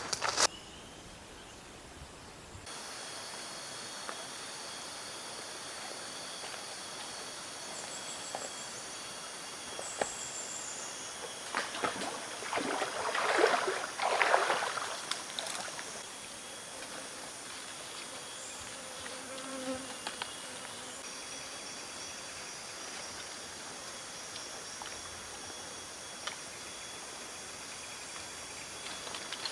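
Forest insects chirring steadily in several high pitches. A louder rustling stretch comes in the middle.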